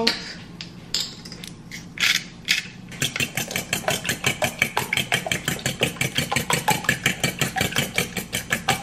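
Whisk beating eggs in a stainless steel bowl: a fast, even clatter of about six strokes a second that starts about three seconds in, after a few scattered knocks and scrapes.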